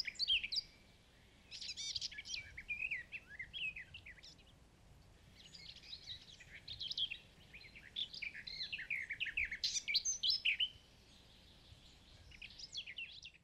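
Small songbirds chirping and twittering in quick bouts of short high notes, with brief lulls about a second in and again near the end.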